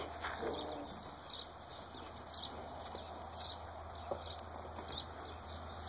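Faint scattered clicks and scuffs over a low steady hum, with no voice.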